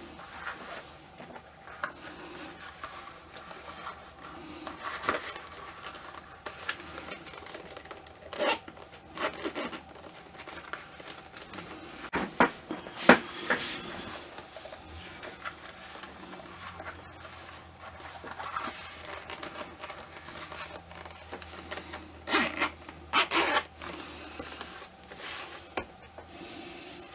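Handling noises from dressing a ball-jointed doll: rustling and rubbing of its clothing and boots, with scattered soft knocks and clicks, the sharpest about halfway through and a cluster near the end.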